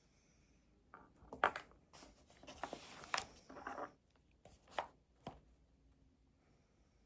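Objects handled on a desk during study: a short run of light knocks and clicks with a brief rustle in the middle, starting about a second in and dying away after about five seconds.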